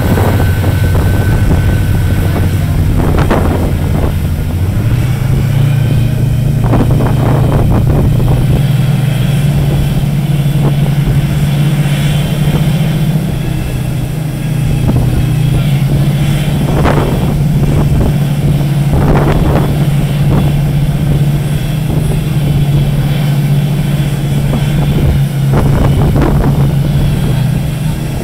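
Steady low engine drone of a large ship under way, stepping up slightly in pitch about five seconds in, over the rush of water along the hull. Gusts of wind hit the microphone every few seconds.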